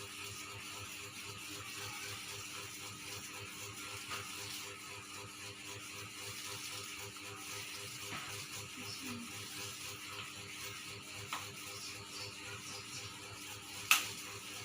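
Steady mechanical hum with a fast, even ticking rattle under it, and one sharp click about a second before the end.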